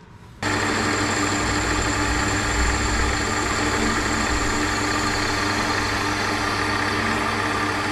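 Small Chester metal lathe running, its carbide-tipped tool taking a facing cut across the end of an aluminium bar in the three-jaw chuck: a steady machine hum and whine over the cutting noise. It starts abruptly about half a second in.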